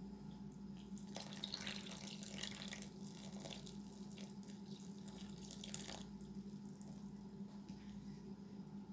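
Water running and splashing, from about a second in to about six seconds in, over a steady low hum.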